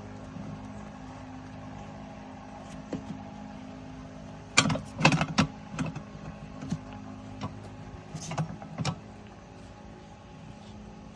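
Metal knocks and clanks from working a tire bead onto a rim on a manual tire changer, in two main clusters about halfway through and near eight seconds in, over a steady low hum.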